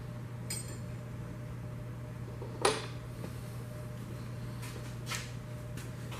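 A few light metallic clinks of tools and engine parts being handled, one sharper than the rest about two and a half seconds in, over a steady low hum.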